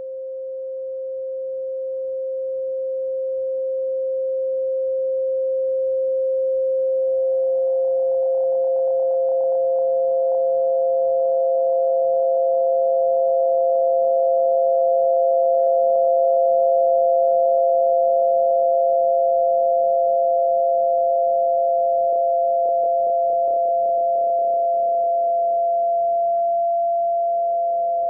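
Synthesized pure sine tones for tinnitus masking. A single steady tone in the middle register swells up in loudness, and about seven seconds in a second, slightly higher steady tone joins it, so that two tones sound together.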